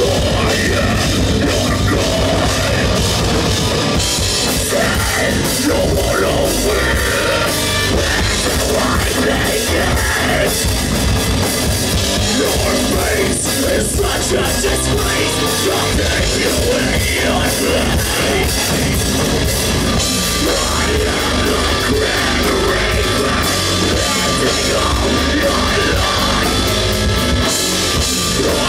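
Heavy metal band playing live and loud, with drum kit and distorted guitars.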